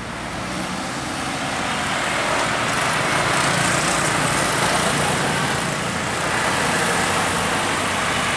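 Road traffic passing close by: car, minibus and motorbike engines with tyre noise on the road. It grows louder over the first three seconds and then stays loud.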